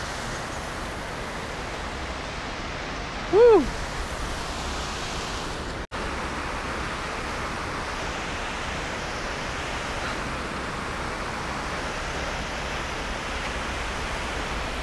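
Steady rush of river water pouring over a weir, an even hiss with no rhythm. About three and a half seconds in, a short pitched call rises and falls once.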